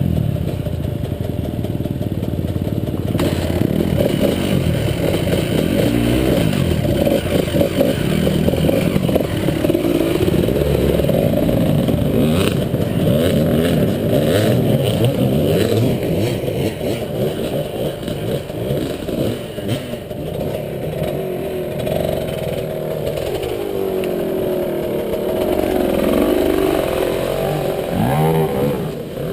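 Off-road motorcycle engines running and revving, the pitch rising and falling, with some clatter along the way.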